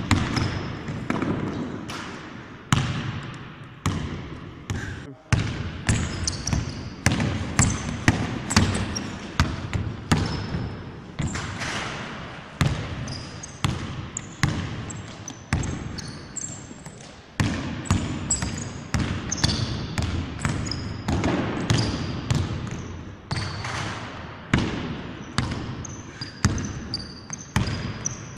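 Basketball dribbled on a hardwood gym floor, about two bounces a second, each bounce echoing in the large hall, with short high squeaks of sneakers on the wood at several points.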